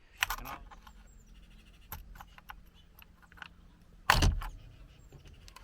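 Clicks and taps of a pointed tool probing through the holes in the back of a car steering wheel to push in the spring-loaded airbag release pins, with a louder knock about four seconds in.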